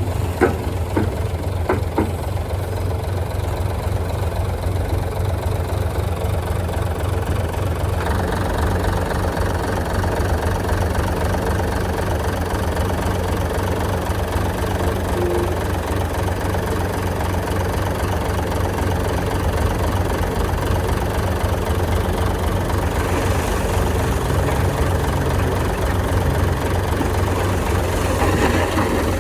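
Heavy machine's engine running steadily with a low hum, a few knocks in the first couple of seconds, and a fuller sound from about eight seconds in.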